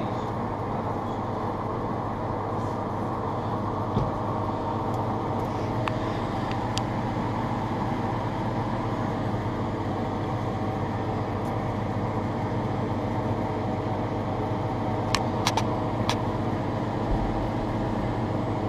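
Steady mechanical hum with a few light clicks and taps now and then.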